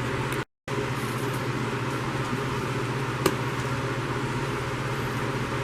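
Steady mechanical hum with hiss, breaking off completely for an instant about half a second in. One sharp click a little past three seconds.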